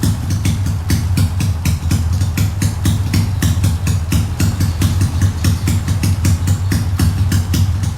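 Honda Wave 125 with a swapped-in MSX125 engine and full open exhaust, idling with an even, lumpy beat of about four to five pulses a second.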